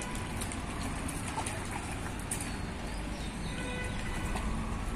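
Steady outdoor background noise with a low rumble, and a faint held pitched tone for about a second near the end.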